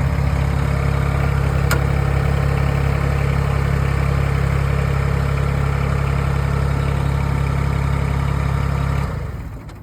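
Tractor engine running steadily, then shut off about nine seconds in.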